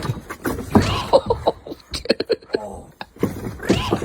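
A person laughing in short bursts, with a quick run of laugh pulses about halfway through.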